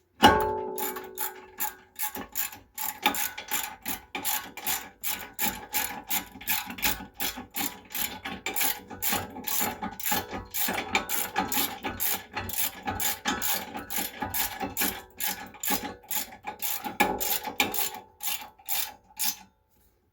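Hand ratchet wrench clicking steadily, about three to four clicks a second, as a bolt is run in. A sharp metallic clank with a brief ring comes right at the start.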